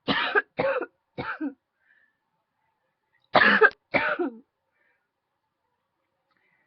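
A woman coughing from a tickle in her throat: three quick coughs, then after a pause of about two seconds, two more.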